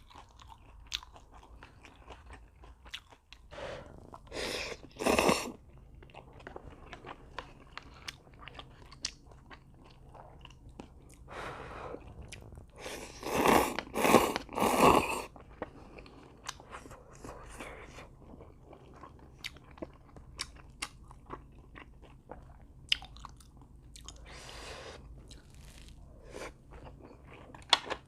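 Close-up eating sounds of a person chewing gimbap, cup ramen and fried food, with many small wet clicks. Louder bites or slurps come twice about four to five seconds in, and three times in a row around thirteen to fifteen seconds in.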